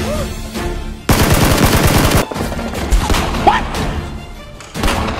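Automatic gunfire sound effect: a burst of rapid shots lasting about a second, starting about a second in, followed by a few separate sharp knocks, over background music.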